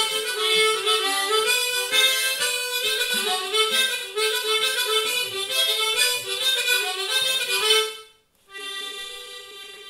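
Button accordion playing a fast Irish tune in quick runs of notes, breaking off suddenly about eight seconds in, then coming back more quietly on long held notes.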